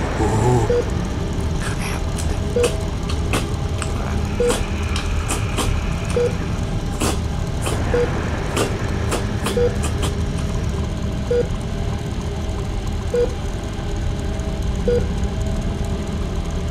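Steady low rumble with a short beep repeating about every 1.7 seconds, and a scatter of sharp clicks in the first half.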